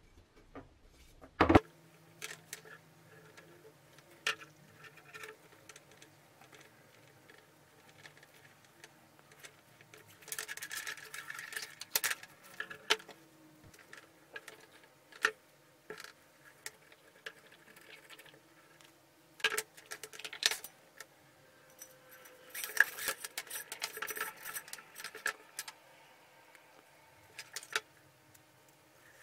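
Handling noise of lamp parts being reassembled: a black electrical cord being fed through a chrome gooseneck lamp arm and a metal base cover, with scattered clicks and taps and light metallic rattling. Two spells of scraping rustle, about ten seconds in and again about twenty-three seconds in.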